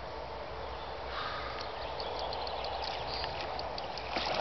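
Spinning reel clicking steadily as a hooked carp pulls against the line. Near the end the fish swirls at the surface with a brief splash.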